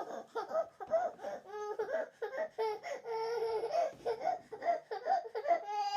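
Baby crying sound effect: quick, choppy, high-pitched sobs, several a second, so broken up that they come close to giggling. A longer, drawn-out wail starts at the very end.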